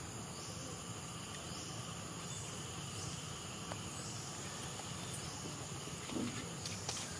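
Steady outdoor insect chorus, a high even drone, with a few faint soft ticks near the end.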